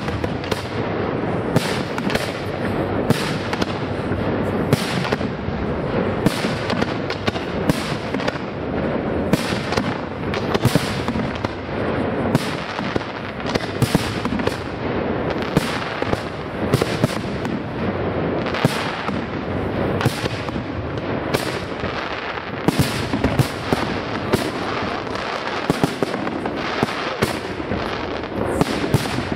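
Fireworks display: aerial shells bursting one after another, several sharp bangs a second over a continuous din of further bursts.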